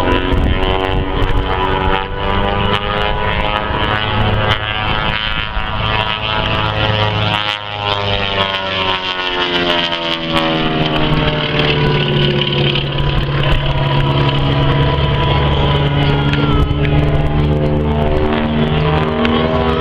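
Twin Pratt & Whitney R-985 radial engines of a Beechcraft Model 18 running at display power through aerobatic manoeuvres, their drone sliding in pitch as the aircraft passes, briefly dipping about halfway through and then settling into a lower, steadier note.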